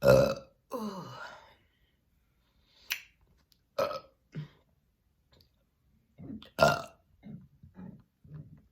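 A woman burping loudly on command, several burps in a row. The loudest comes right at the start and is followed by a short falling "ooh". Shorter burps come around four seconds in, and another loud one comes near seven seconds.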